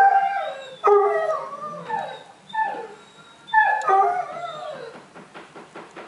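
Basset hound puppies howling and yelping in about six short calls that slide down in pitch, some overlapping.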